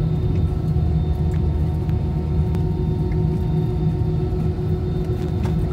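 Airliner's jet engines and cabin air heard from inside the cabin while the plane taxis on the ground: a steady low rumble with several steady whining tones over it.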